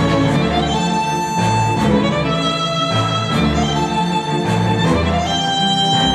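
Instrumental music led by violin and bowed strings, with long held notes over a bass line that changes every second or so, played through Focal Chora 806 bookshelf speakers driven by an NAD C700 amplifier and picked up by room microphones.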